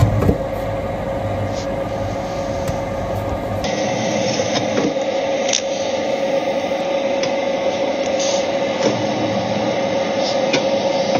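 Lennox high-efficiency gas furnace running with its burners lit: the inducer fan motor's steady hum with a constant whine. The deep rumble drops away about a third of the way in, and a few light clicks and taps come from the metal compartment cover being handled.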